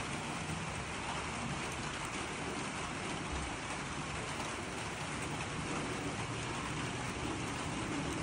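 A steady, even hiss of background noise.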